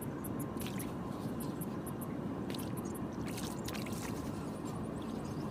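Light, irregular splashing and dripping as handfuls of groundbait are scattered into shallow water around a wading angler, over a steady low background rush.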